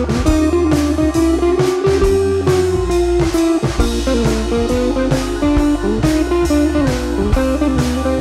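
Background music: a bluesy guitar tune with bending notes over a steady drum beat.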